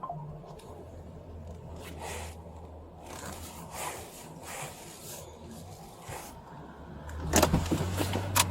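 Steady low hum of a car's running engine, with scraping and rustling of clothing and gear against a body-worn camera; the rustling and knocks get louder near the end.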